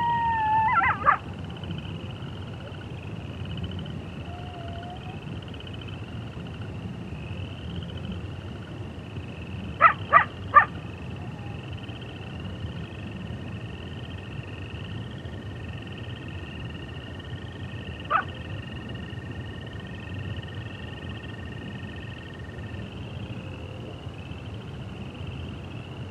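Wolves calling: the tail of a howl ends about a second in, then three quick yips in a row about ten seconds in and a single yip around eighteen seconds. Between the calls there is a steady background ambience with a faint, evenly pulsing high drone.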